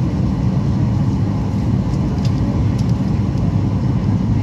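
Steady low rumble of a Boeing 737-800's engines and airflow heard inside the passenger cabin during the descent to landing.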